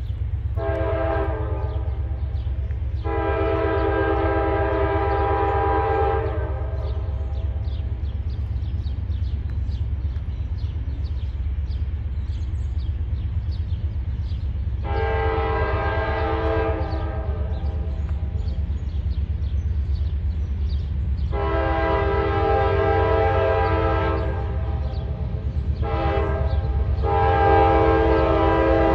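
CSX diesel freight locomotive sounding its multi-note air horn over a steady low engine rumble. A short blast and a long one come first, then after a pause three long blasts, a short one and a long one. The last four form the long-long-short-long signal for a grade crossing.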